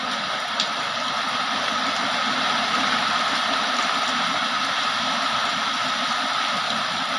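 Heavy rain falling steadily, a continuous hiss of water. There is one sharp tick about half a second in.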